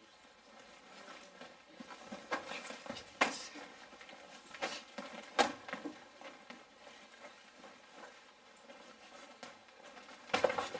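Light-contact taekwon-do sparring: padded gloves and foot protectors striking in a handful of sharp slaps, loudest about three and five seconds in, with feet shuffling and padding on a hard floor between them.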